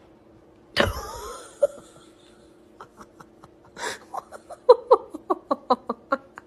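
A short, loud cry with a wavering pitch about a second in, then a person laughing in quick short bursts, about four a second, from about four seconds in.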